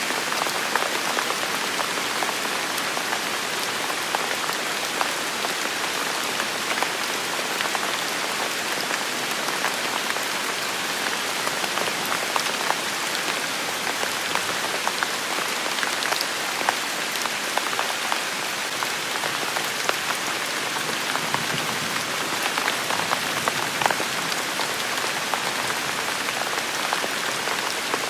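Steady rain falling, an even hiss with many small scattered drop ticks and no let-up.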